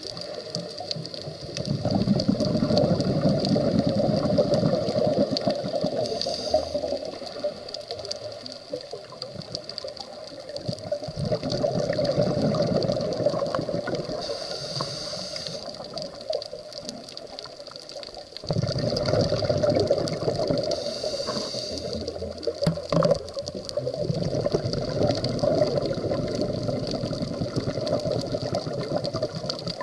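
Scuba diver breathing through a regulator underwater: a short hiss on each inhale, then a few seconds of exhaled bubbles, about four breaths in all.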